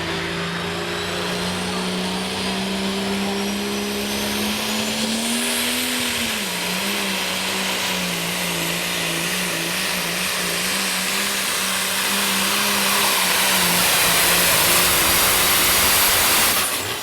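Turbocharged diesel engine of a modified farm pulling tractor at full throttle under the load of a pulling sled, with a high turbo whine. Its pitch climbs, then sags and wavers as the load bites; it grows loudest near the end and cuts off suddenly.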